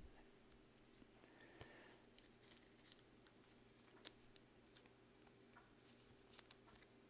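Near silence: faint clicks and rustles of gloved hands handling trading cards, the sharpest tick about four seconds in and a few more around six seconds, over a faint steady hum.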